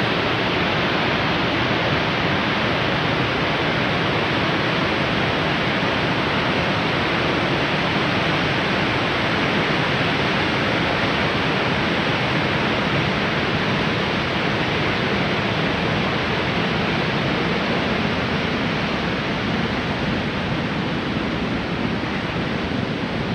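Cumberland Falls, a large high-volume waterfall, rushing steadily: an even, unbroken wash of falling water.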